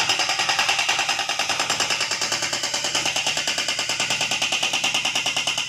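JCB HM380 hydraulic breaker on a backhoe loader hammering into concrete rubble: a rapid, even, unbroken run of blows.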